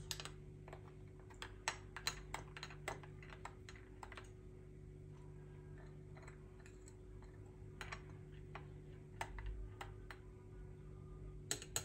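A metal teaspoon clinks against the sides of a glass cup while stirring a cappuccino. A quick run of light ticks in the first few seconds gives way to sparser taps, over a steady low hum.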